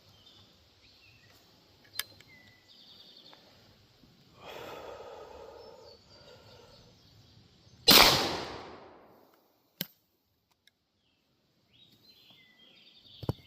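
One shot from a 12-gauge New England Arms shotgun with an 18¼-inch barrel, firing 2¾-inch 00 buckshot, about eight seconds in; the blast dies away over about a second and a half. Before it, a couple of faint clicks and a few seconds of rustling.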